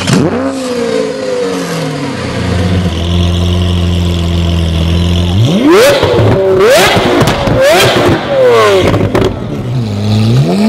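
Engine of a student-built competition car: it winds down to a steady idle, then is revved sharply three or four times about halfway through before dropping back to idle near the end.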